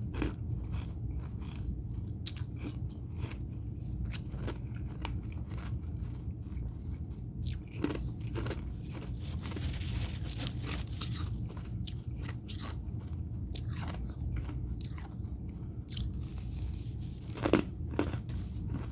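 Freezer frost crunching close to the microphone as it is bitten and chewed, in a steady run of crisp crunches. There is a longer gritty stretch midway and two loud crunches near the end.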